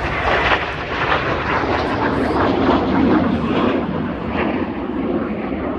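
Jet noise from Red Arrows BAE Hawk T1 jets flying past and moving away, a loud steady rushing roar whose high hiss gradually dulls.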